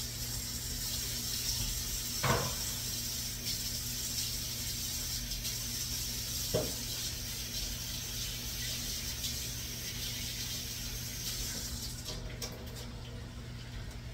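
Diced onions, peppers and celery sizzling in olive oil in a hot sauté pan, a steady hiss that drops away about twelve seconds in. Two brief knocks come about two and six and a half seconds in.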